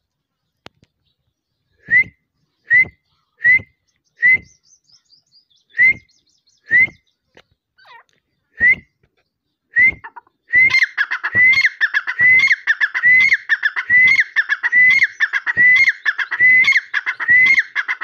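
A Dakhni teetar calling. First come single short, sharp whistled notes about a second apart. About ten seconds in they break into a louder, fast run of repeated notes, about two a second.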